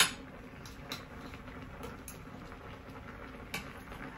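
A sharp clack right at the start, then a few light taps of a knife on a cutting board, over the faint bubbling of a beef stew simmering in a pot.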